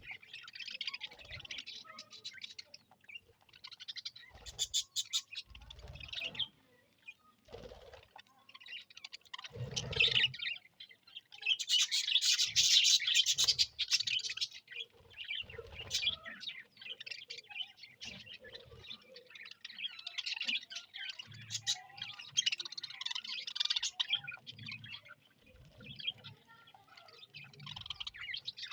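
A colony of budgerigars chirping and chattering in overlapping bursts, loudest and densest about halfway through.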